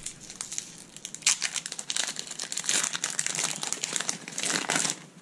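Foil Pokémon booster pack being torn open and pulled apart by hand, the wrapper crinkling in quick irregular bursts.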